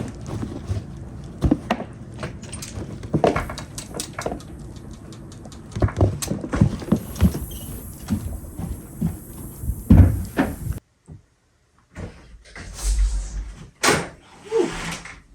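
Irregular knocks, thumps and clatter of gear being unloaded from a truck and carried in, with a door opening and closing. The sound drops out for about a second around two-thirds of the way through.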